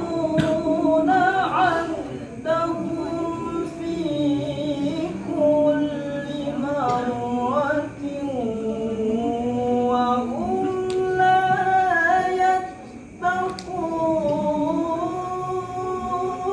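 Melodic Quran recitation (tilawah) by a single high male voice in maqam Nahawand: long, ornamented phrases that glide and waver in pitch, with a brief pause for breath about thirteen seconds in.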